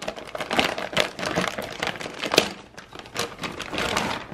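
Clear plastic bag crinkling and rustling as a cable modem is worked out of it: dense, irregular crackling, with one sharper click about two and a half seconds in.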